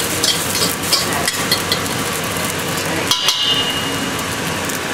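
Egg with soy sauce sizzling in a very hot wok as it is stirred and scrambled, the utensil ticking against the pan about four times a second at first. About three seconds in, a sharp metal clink rings briefly.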